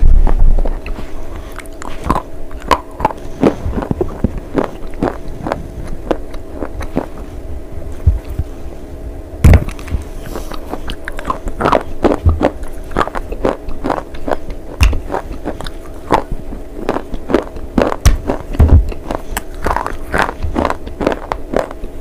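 Someone biting and chewing pieces of slate bar close to the microphone: a run of sharp, irregular crunches and snaps, a few much louder bites about nine and a half seconds in and near the three-quarter mark, over a faint steady hum.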